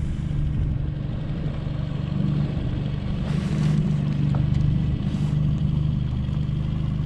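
Small outboard motor running steadily under way, driving an open boat across a river, with a brief hiss about halfway through.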